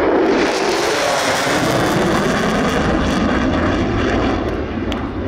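F-16 Fighting Falcon jet making a fast pass: a loud rushing jet noise that swells within the first half second and drops in pitch as the aircraft goes by.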